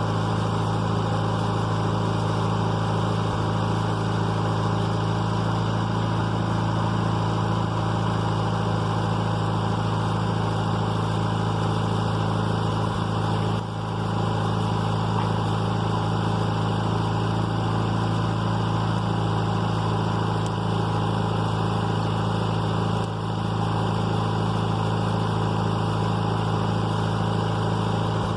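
Backhoe's diesel engine running steadily at an even speed, with two brief dips in level, one about halfway through and one near the end.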